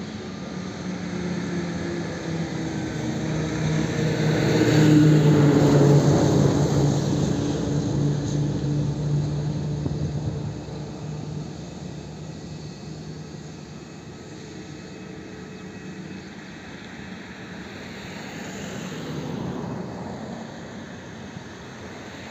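Airbus A320neo airliner's jet engines at taxi power as it rolls slowly past: a steady low drone over a hiss that swells to its loudest about five seconds in and then fades, with a smaller swell near the end.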